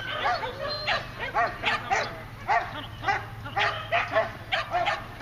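A dog barking rapidly and continuously, about three barks a second.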